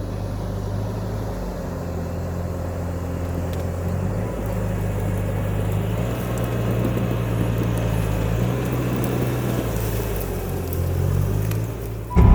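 Diesel engine of a Bobcat T650 compact track loader running steadily, its pitch stepping up and down every few seconds as the engine speed changes.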